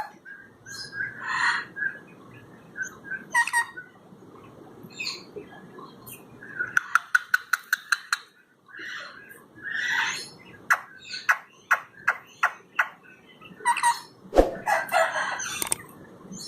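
Pet ringneck parrots squawking and chattering in short, repeated calls, with a quick run of sharp clicks about halfway through.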